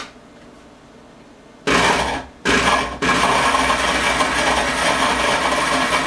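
Countertop blender switched on about two seconds in. It pulses twice briefly, then runs steadily, chopping pieces of medjool dates in heavy cream into a paste.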